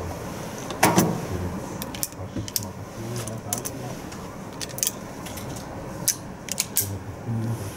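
Brass .38 S&W cartridges clicking one by one into the cylinder chambers of an Enfield No.2 break-top revolver, a string of separate sharp metallic clicks, followed near the end by the hinged frame being swung shut.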